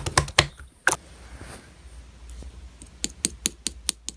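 Typing on a keyboard: a quick run of clicks at the start, a lull, then steady clicks about five a second from about three seconds in.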